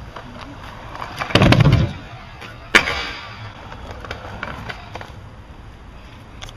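Kick scooter's small wheels rolling over asphalt with scattered light clicks and rattles. There is a loud low rumble about a second and a half in and one sharp clack near three seconds.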